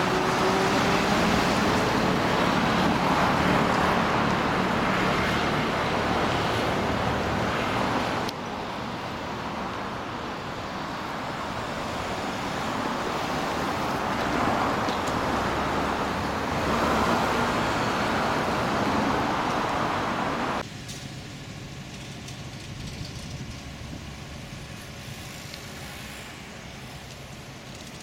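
Road traffic: cars going by on a busy road in a steady wash of noise, which drops suddenly in level about eight seconds in and again about twenty-one seconds in.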